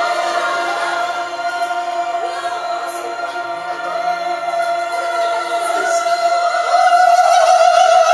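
A group of voices singing together in chorus, drawing out long held notes; a final held note swells louder near the end.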